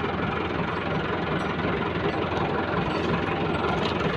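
Massey Ferguson 375 tractor's diesel engine idling steadily.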